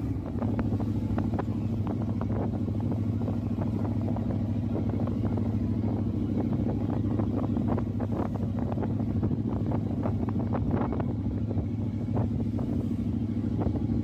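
A motor running steadily at an even pitch, with many short clicks and knocks over it.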